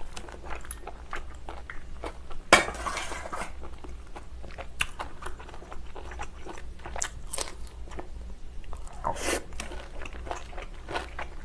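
Close-miked chewing and mouth smacking while eating seafood stew: a steady run of small wet clicks. A sharp, louder click comes about two and a half seconds in, followed by a short noisy rush, and another rush comes near the end.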